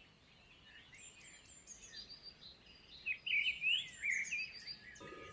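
Small songbirds chirping, many short high notes sliding up and down in pitch, sparse at first and busier and louder from about three seconds in.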